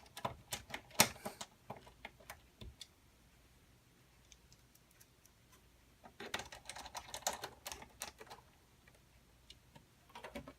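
Clicks and clatter of a computer case's front panel being fitted and screwed on: a quick run of sharp clicks for the first few seconds, a pause, then a second cluster of clicking about six seconds in.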